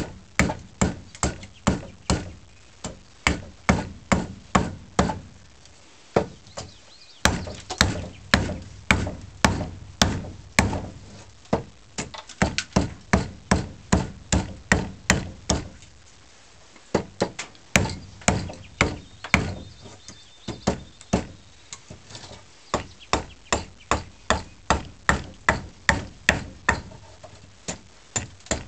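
Side (hewing) axe chopping along a wooden snath grip: a quick run of sharp blows into wood, about two a second, with a short break about six seconds in and again about sixteen seconds in.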